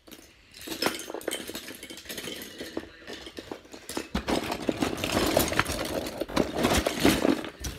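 Loose plastic Lego bricks clattering and clicking against each other as a hand rummages through a cardboard box full of them, busier and louder in the second half.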